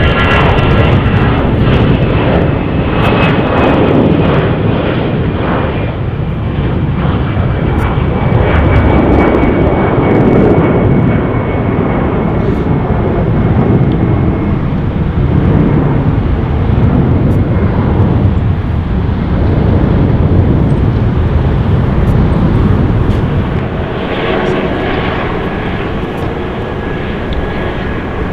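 Jet airliner engines, a loud continuous rumble with a high whine that slowly falls in pitch over the first several seconds; a fresh high whine comes in near the end.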